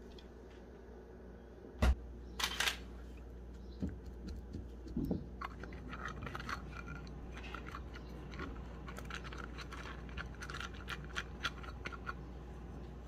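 Light irregular clicks and scrapes of a fluted metal tart mold being handled and brushed inside with butter using a silicone pastry brush. A single sharp knock about two seconds in is the loudest sound.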